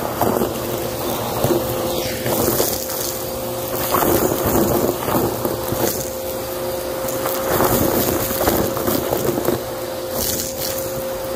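Vacuum cleaner running with its hose tool sucking up carpet strewn with confetti, sequins and small beads: a steady motor whine with irregular crunching and rattling as the debris rushes up the hose.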